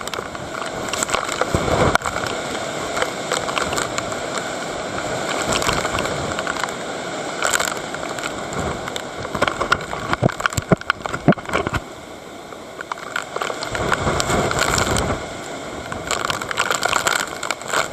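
Strong typhoon wind gusting hard against the microphone, with dense crackling and spray-like noise; the gusts swell and ease several times.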